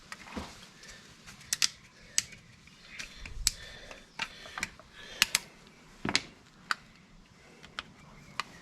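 Irregular sharp plastic clicks and taps from handling a bottle of SAE30 engine oil and its cap, ready for topping up a lawnmower engine.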